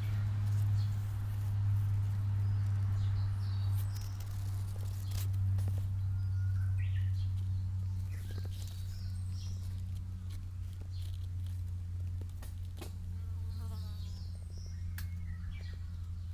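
A steady low hum or buzz runs throughout, with a few short bird chirps and faint clicks scattered over it.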